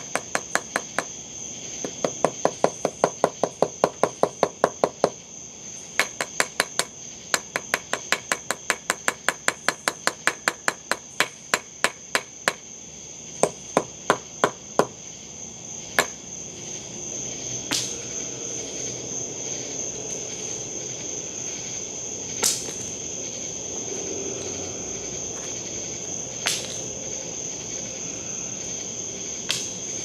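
Aluminium Olight Arkfeld flashlight struck again and again against a wooden post in an impact torture test. The knocks come about four a second for the first fifteen seconds, with short breaks, then as a few single knocks several seconds apart. Crickets chirp steadily in the background.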